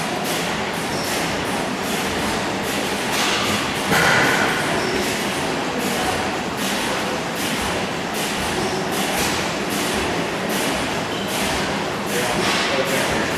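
Several old stationary gas engines running at once, a steady clatter of many overlapping knocks and exhaust pops, with a brief louder metallic clank about four seconds in.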